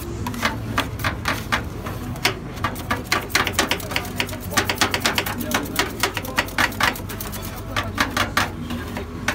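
Two metal spatulas chopping cookies into ice-cream base on a frozen steel pan for Thai rolled ice cream: rapid, irregular metallic clacks and scrapes, several a second, over a steady low hum.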